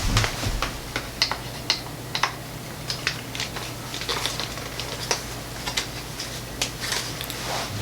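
Irregular small clicks and taps of a speedlight flash being fitted into a shoe-mount adapter on a clamp clip, over a steady low hum.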